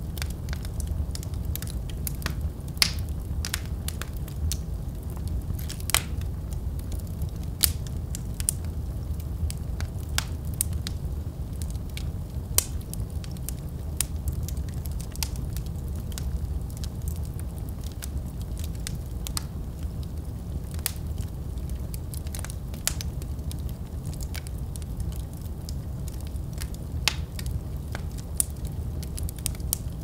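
Wood fire burning in a fireplace grate, crackling with irregular sharp pops from the logs over a steady low rumble of flames.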